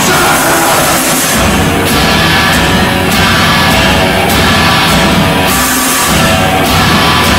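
Loud live rock: two electric guitars playing a heavy, dense riff, with a regular crash in the highs about every second.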